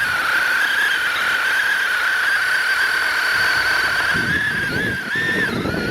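Worx 20-volt cordless mini chainsaw with a 5-inch bar running with a steady high whine while cutting through wood. In the last couple of seconds the whine wavers and dips as the chain takes load in the cut.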